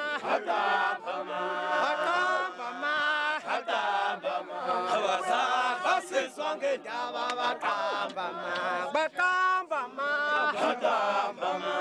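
A crowd of Zulu men chanting together in unison, a rhythmic war chant sung by many voices at once.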